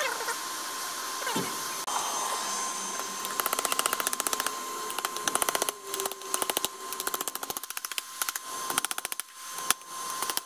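Hand hammer striking a curved 5160 steel knife blade on a steel-block anvil, in quick runs of rapid ringing blows with short pauses between runs. A steady hum with a constant tone runs underneath.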